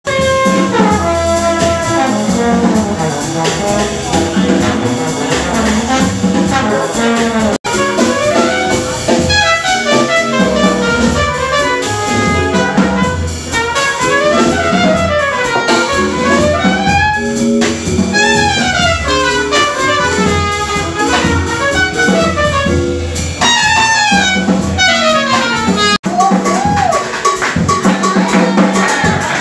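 Live jazz sextet playing, with trumpet and trombone lines over vibraphone, guitar, upright bass and drums. The sound cuts out for an instant twice.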